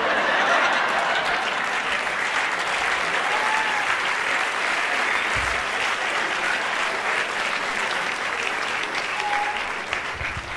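Live audience applauding steadily, easing off near the end.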